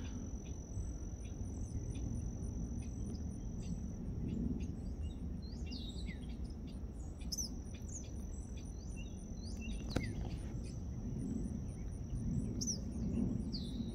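Evening insect chorus: one insect trilling a steady high note, with another chirping in even pulses above it, about four a second. Birds call in short, falling chirps several times over it, a low rumble runs underneath, and there is a single sharp click about ten seconds in.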